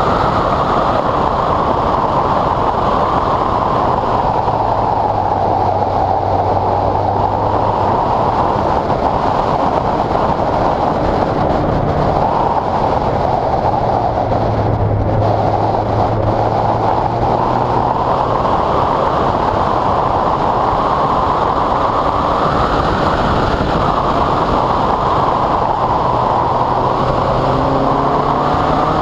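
Westfield sports car driven at speed on a wet track, heard onboard: a loud, steady rush of wind and tyre spray over a low engine note that comes and goes with the revs, climbing near the end as the car accelerates.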